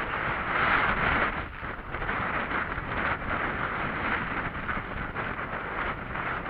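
Wind buffeting the microphone of a hiker's camera, mixed with the scuffing and crunching of footsteps on a rocky dirt trail.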